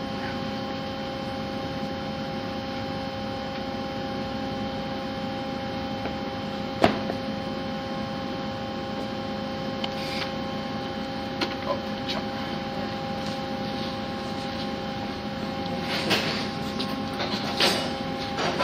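Steady electrical hum of a powered-up Haas SL-20 CNC lathe, holding several steady tones. A sharp click about seven seconds in and a few fainter clicks follow, with some knocking near the end.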